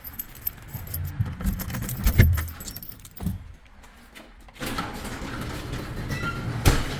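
Keys jangling amid scattered knocks and clicks, with one sharp click about a second before the end; a steady background noise comes in past the middle.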